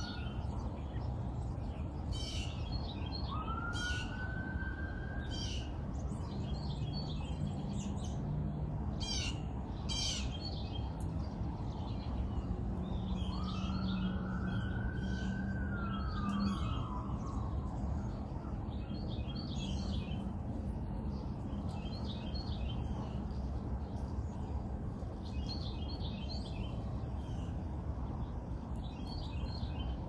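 Small songbirds chirping in short, repeated bursts, with a distant siren wailing up and down in pitch three times: briefly at the start, again a few seconds in, and longest around the middle. A steady low rumble of traffic and wind runs underneath.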